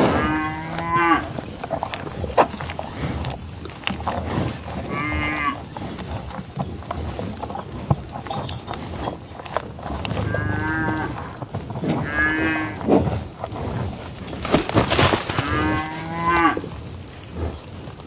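A cow mooing in about five short calls spaced a few seconds apart. A loud sudden noise comes about 15 seconds in.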